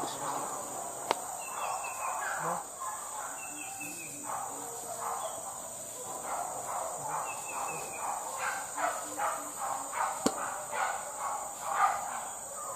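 A steady high-pitched insect drone, with irregular softer noises underneath and two sharp clicks, one about a second in and one near the end.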